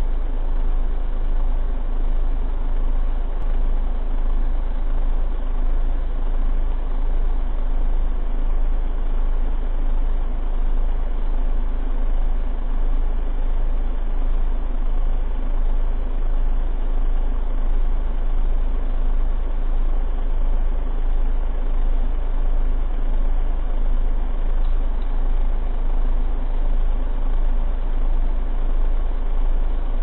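Small electric desk fan running steadily: a low hum under an even noise.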